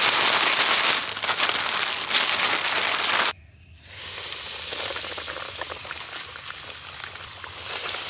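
A plastic bag of crappie fillets in breading mix shaken and crinkling, loudly, for about three seconds. Then, after a brief break, breaded fillets sizzling and crackling steadily in the hot oil of a deep fryer, quieter than the bag.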